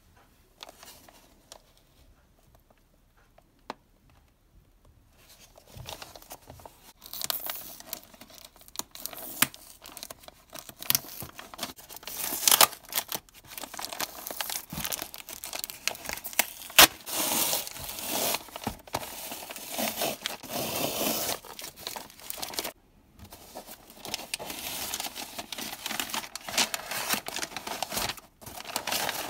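Brown kraft wrapping paper being torn and crinkled by hand as a parcel is unwrapped: sharp rips over steady crackling. The first five seconds or so hold only a few light touches before the tearing starts.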